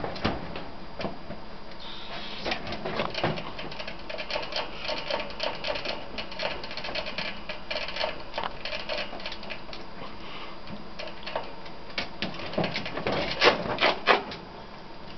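Ferrets licking at the metal spout of a cage water bottle, the ball valve in the nozzle clicking quickly and unevenly. A few louder knocks sound near the end.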